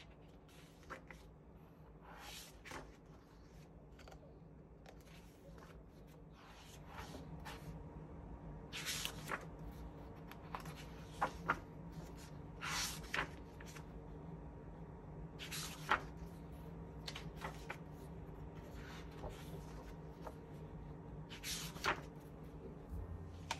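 Pages of a thick hardcover cookbook being turned by hand: several short papery swishes and rustles a few seconds apart, over a faint steady hum.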